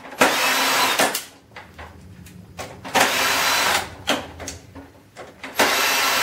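Electric drill-driver running in three short bursts of about a second each, backing screws out of a printer's casing, with small clicks and handling noises between the bursts.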